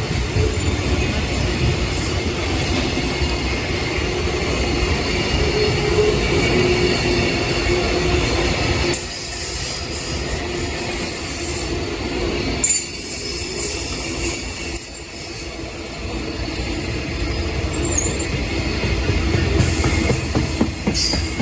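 Container freight train rolling past at speed, a steady heavy rumble of wagon wheels on rail with high-pitched wheel squeal coming in about halfway through.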